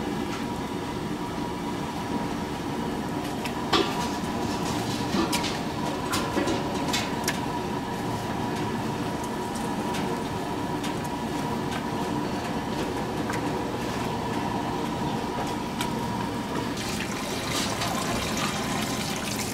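Water running from a hose into a large pot packed with pig heads: a steady rushing, with a faint steady tone underneath and a few small knocks.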